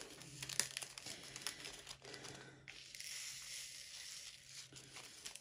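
Small plastic drill bags from a diamond painting kit being handled, crinkling faintly, with a few light clicks and a longer rustle near the middle.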